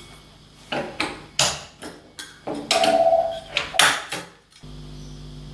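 Wooden crate side panels being taken down: a series of sharp knocks and clatters of timber and clips, with a short squeak about three seconds in. About four and a half seconds in the clatter stops and a steady electrical hum takes over.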